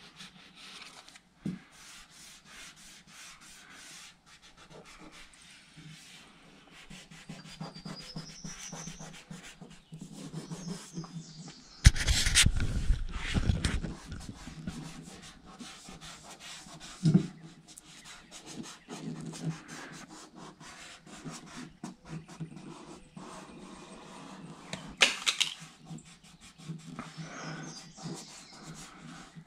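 A plastic squeegee and fingertips rubbing and scraping a vinyl registration decal down onto a painted aluminum boat hull, in a steady run of small rubs and scratches. About twelve seconds in comes a louder, heavy rubbing bump lasting a couple of seconds, and a sharp knock about twenty-five seconds in.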